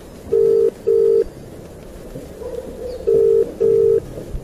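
Ringback tone of an outgoing mobile phone call heard through the phone's speaker: two double rings, each a pair of short steady low beeps, a couple of seconds apart, while the call waits to be answered.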